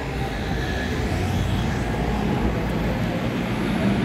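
Busy city street ambience: a steady low rumble of traffic with pedestrians' voices mixed in.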